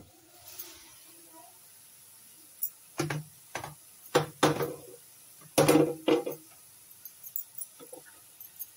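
A glass pan lid comes off with a sharp clink, then a wooden spatula knocks and scrapes against a nonstick pan as it stirs grated bottle gourd, in a cluster of short strokes.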